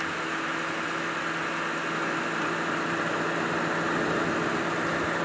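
A vehicle engine idling steadily: a constant low hum with an even hiss over it.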